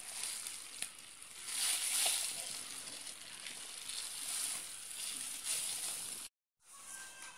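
A spoon working margarine into stiff bread dough in a metal bowl: soft squelching and scraping that swells and fades with each stroke, with a few small clicks of the spoon on the bowl. The sound cuts out briefly near the end.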